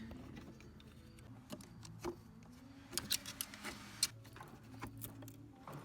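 Scattered light clicks and taps of a metal pick and hands working at the plastic blower motor housing to release the BMW Z3's blower motor, over a faint steady low hum.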